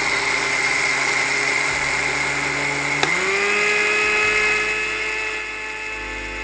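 Anex electric blender's dry-grinder attachment running, its motor whining steadily as it grinds granulated sugar into powdered sugar. About three seconds in there is a click and the whine rises in pitch, then holds steady.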